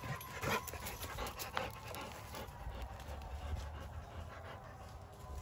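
A dog panting with its mouth open, about two or three breaths a second.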